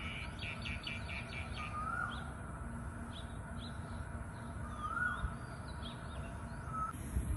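Birds calling outdoors: a rising whistled call comes about every three seconds, with a quick run of higher chirps in the first two seconds and scattered short chirps between, over a steady low background noise.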